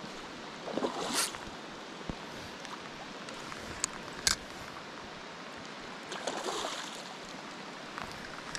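Spinning reel working against a hooked salmon: short zipping bursts about a second in and again around four seconds in, over a steady wash of river water.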